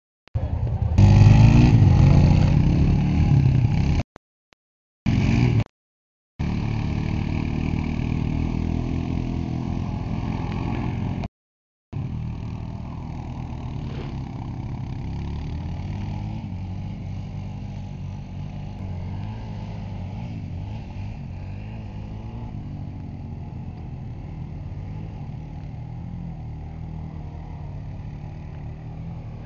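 Quad (ATV) engines revving and running across several short clips separated by brief silent cuts. The loudest revving comes in the first few seconds, followed by a steadier, quieter engine sound as a quad rides through water.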